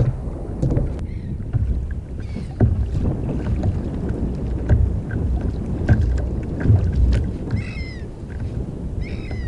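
Wind and water around a sit-on-top fishing kayak at sea: a low rumble of wind on the microphone and water slapping the hull, with scattered small knocks. A few short, high chirping calls come through about a second in, a little after two seconds, and twice near the end.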